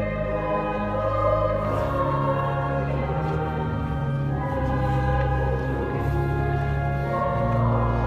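Church music in a stone cathedral: a choir singing over long held bass notes, which change about two seconds in and again near the end.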